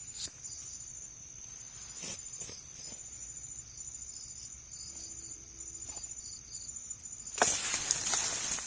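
Steady high-pitched trilling of crickets or similar insects, with a few faint clicks. Near the end a loud rustling of footsteps pushing through vegetation takes over.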